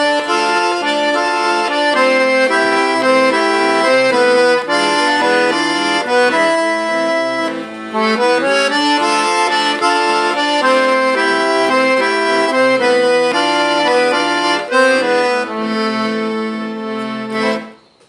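Piano accordion playing a forró tune, a melody over held chords, stopping abruptly just before the end.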